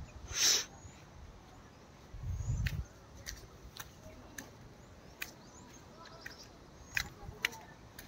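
Outdoor ambience with faint bird chirps and a few sharp clicks scattered through it, a short burst of rustling noise about half a second in, and a brief low rumble of wind on the microphone a little over two seconds in.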